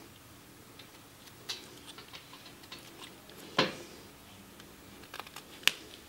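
Pocketknife blade paring small chips from a linden twig: scattered light clicks and scrapes, with two sharper clicks, one about midway and one near the end.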